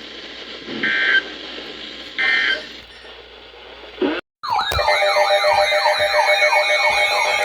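Emergency Alert System digital data bursts: two short, harsh two-tone bursts about a second and a half apart, the end-of-message code that closes the warning. After a brief dropout a bit past four seconds in, a loud warbling, siren-like electronic alert tone starts over a chord of steady tones.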